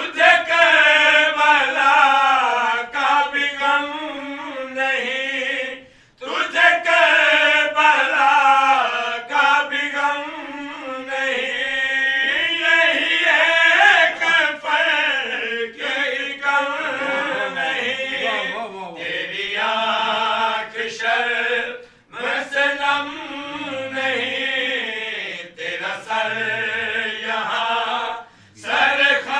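A man chanting a devotional qaseeda into a microphone in long, melodic sung phrases, with a brief breath pause about six seconds in and another about twenty-two seconds in.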